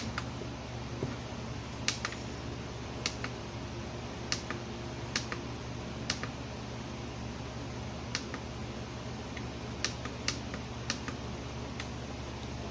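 About a dozen light, irregularly spaced clicks and taps over a steady low hum, like buttons being pressed or a device being handled while someone tries to get a silent speaker to play.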